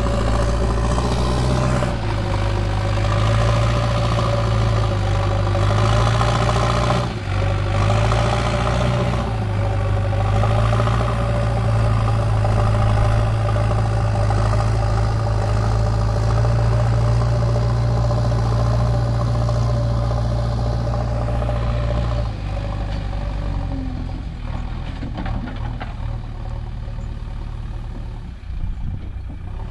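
Diesel engine of a JCB 3DX backhoe loader running steadily as the machine works loose soil with its front bucket. About 22 seconds in the engine grows quieter as the machine moves farther off.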